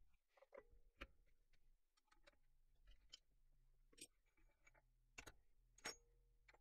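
Near silence: faint room tone with a low hum and a few scattered light clicks and ticks.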